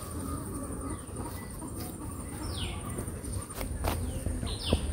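Outdoor rural ambience: a steady high-pitched insect drone, with short bird calls falling in pitch about halfway through and again near the end, and a few faint clicks.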